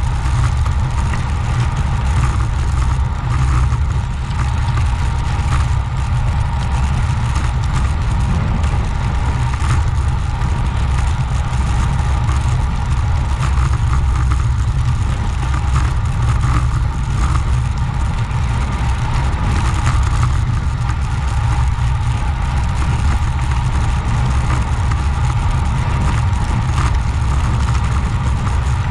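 Steady wind rush buffeting the microphone while riding a road bike at speed.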